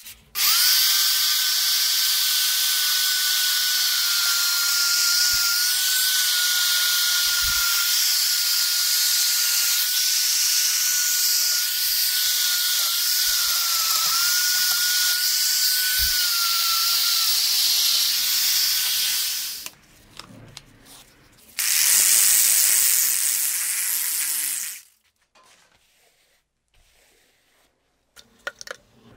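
Die grinder with a small abrasive bit grinding rust off cast iron inside the holes of a swage block: a steady high-pitched whine over a loud hiss, dipping slightly now and then as the bit bites. It runs for about nineteen seconds, stops, then runs again for about three seconds before cutting off.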